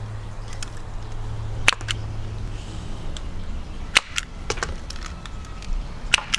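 Toy potato spud gun firing potato pellets at cardboard toilet-roll tubes: two sharp pops about two seconds apart, then a few lighter clicks as pellets strike and a tube is knocked over.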